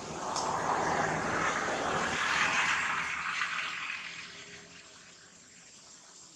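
A motor vehicle passing by: a rushing engine-and-road noise that swells over about a second, holds, then fades away by about five seconds in.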